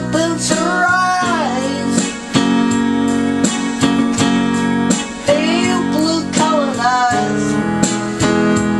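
Rock ballad played by a band: held guitar and keyboard chords over a steady beat, with a wavering, sliding lead melody rising and falling twice across the passage.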